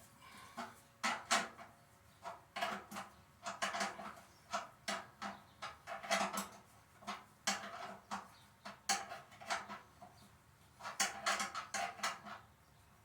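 Hand wrench clinking and tapping against the 1/2-inch bolts of a chipper shredder's front cover as they are worked loose: irregular sharp metal clicks, two or three a second, with short pauses.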